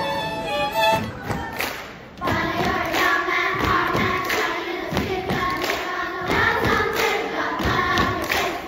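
A violin-led string ensemble plays for about a second and breaks off. Then a children's choir sings a cappella from about two seconds in, over a steady beat of thumps and claps.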